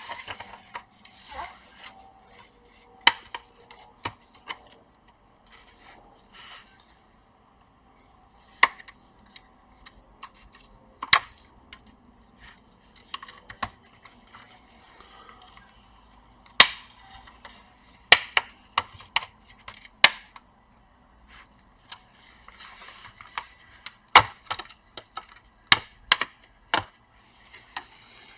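Plastic bottom cover of an Acer Aspire A515 laptop being pried off: a scattered series of sharp plastic clicks and snaps as its clips let go, with brief scraping between them.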